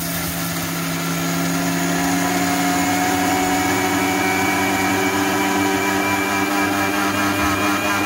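Electric mixer grinder running at full speed, grinding roasted dal and spices to a dry powder (idli podi) in its stainless steel jar. A steady motor whine whose pitch rises slowly.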